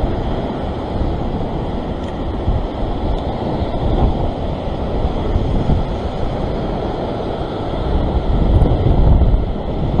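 Rough surf breaking and washing over a rock ledge, with strong wind buffeting the microphone. The wind rumble swells louder about eight to nine seconds in.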